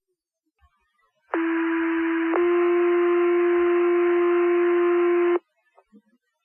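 Two-tone sequential fire pager alert over the dispatch radio channel: one steady tone for about a second, then a second, slightly different and louder tone held for about three seconds, cutting off suddenly. It is the alert that sets off the volunteer firefighters' pagers ahead of the voice page.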